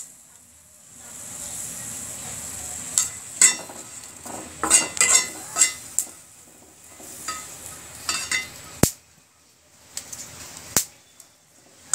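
Green chillies frying in hot mustard oil in a pan: the oil sizzles unevenly, with a spatula scraping and clicking against the pan as they are stirred.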